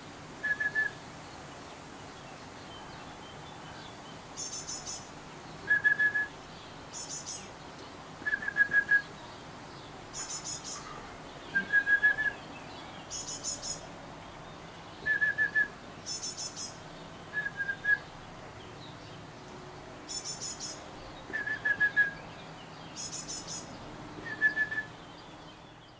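Great tit singing: short, clear whistled phrases repeated every few seconds. Fainter, thin, rapid high phrases come in between, so low and high phrases alternate about every one and a half seconds.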